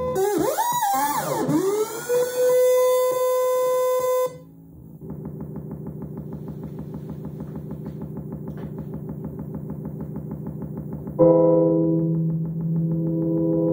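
Electronic synthesizer music from a modular rig built around a Moog Subharmonicon. Swooping, gliding tones settle into a held note. After a brief dip, a fast pulsing sequenced pattern takes over, and a loud sustained chord comes in on top of it about eleven seconds in.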